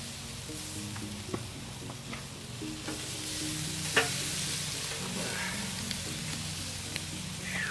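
Sizzling as a sweet hoisin-honey marinade is brushed onto pork hanging over hot lump charcoal, with a few light clicks and one sharp click about four seconds in.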